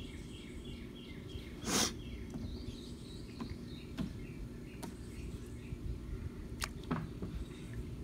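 Steady low hum of an Intex above-ground pool filter pump, with short chirps repeating faintly over it. About two seconds in there is a short, loud burst of noise, and a few sharp clicks follow later.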